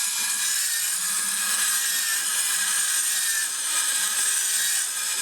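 Vintage battery-powered toy walking robot running with its built-in screeching noise: a loud, harsh, continuous rasping screech over the whirr of its small motor and gears, which cuts off abruptly when the remote's button is let go.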